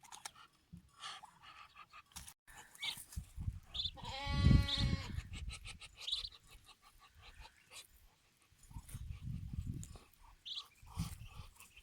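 Muscovy ducks and ducklings at watermelon: short high peeps and small clicks, with one loud, drawn-out animal call about four seconds in.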